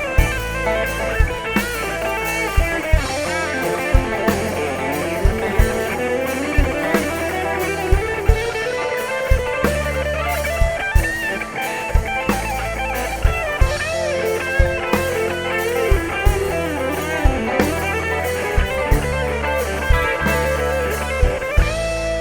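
Live rock band playing an instrumental break: an electric guitar lead with bending, wavering notes over bass and a steady drum beat.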